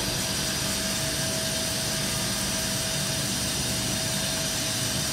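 Steady hiss and hum of a CNC machining centre running, with a thin steady whine, as the machine slowly traverses a dial test indicator across a milled aluminium plate.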